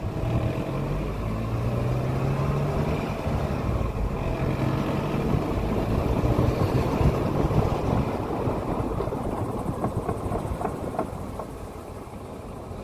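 Car driving, its engine rising in pitch early on over steady road and tyre noise. The knock being demonstrated appeared after the brake discs were machined; the owner notes that it does not come through the steering wheel or the brake pedal.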